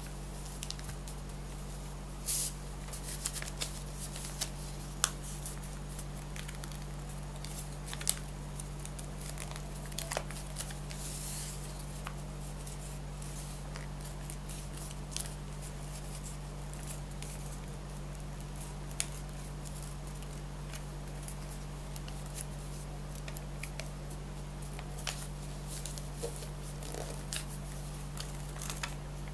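Paper being handled and folded by hand: scattered crisp rustles and ticks of creasing paper, over a steady low hum.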